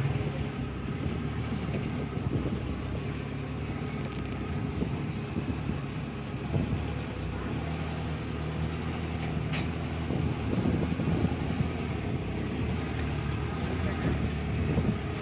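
Small motorcycle engine running steadily at low revs while the motorcycle with its cargo sidecar is eased into a parking spot.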